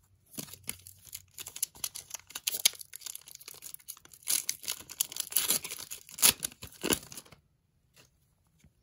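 Hockey card pack wrapper being torn open and crinkled by hand, a run of crackling tears and rustles that stops about seven seconds in.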